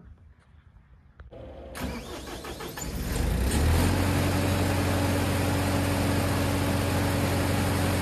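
The Bandit 2650T stump grinder's 61 hp Perkins diesel engine starting: it cranks over with a rapid pulsing for about a second and a half, catches, then settles into steady running with a low hum.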